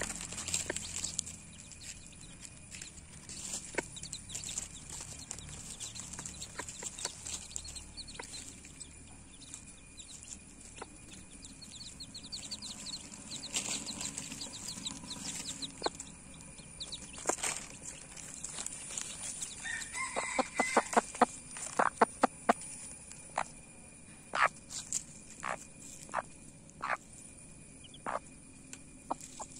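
Mother hen clucking among her chicks: a quick run of about a dozen short clucks roughly two-thirds of the way through, then scattered single clucks. Faint high chick peeps come earlier.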